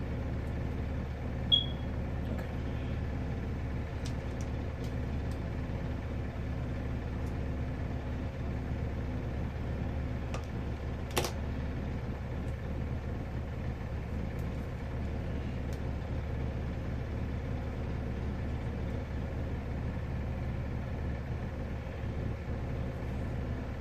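Steady low machine hum, with a brief high-pitched beep about a second and a half in and a single sharp click near the middle.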